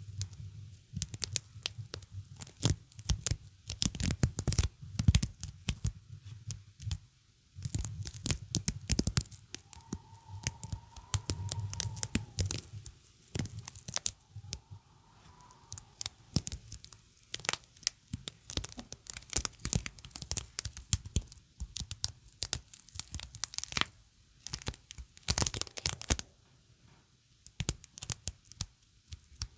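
Sticky surface repeatedly pressed and peeled apart close to the microphone, making irregular crackling, tearing peels with short pauses between them.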